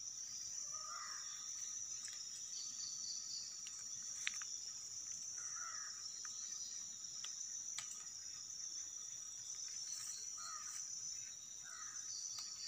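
Outdoor ambience: a steady high insect trill, with a bird calling about four times in short calls and a few sharp clicks, the loudest about four seconds in.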